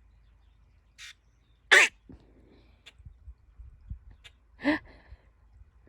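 A bird giving three short, rasping calls. The loudest comes just under two seconds in, a softer one about a second in and another a little before the end, with a few faint clicks in between.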